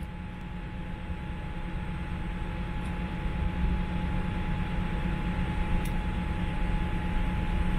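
Cabin noise inside a Boeing 787-8 airliner during pushback: a steady low rumble and airy hiss with a constant mid-pitched hum, slowly growing louder.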